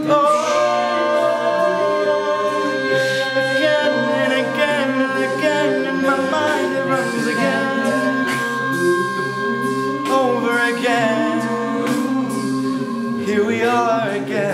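Male a cappella group singing held chords in close harmony, the upper voices wavering with vibrato.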